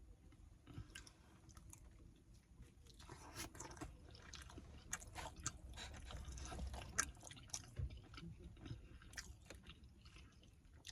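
A person chewing a mouthful of food close to the microphone, with many small wet mouth smacks and clicks at an irregular pace.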